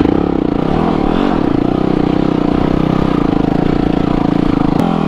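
Yamaha WR250R's single-cylinder four-stroke engine held at high revs under load, its pitch wavering up and down with the throttle.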